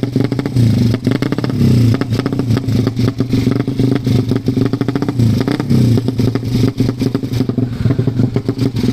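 Ported Suzuki Satria FU single-cylinder race engine running on an open exhaust, revved in repeated blips that swell and drop back, with a rapid, choppy firing beat.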